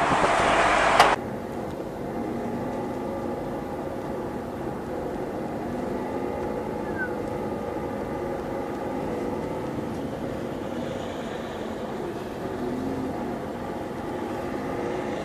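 A loud rushing noise that cuts off abruptly about a second in, then steady engine hum and road noise of a car, picked up by its dashboard camera while it creeps along in traffic.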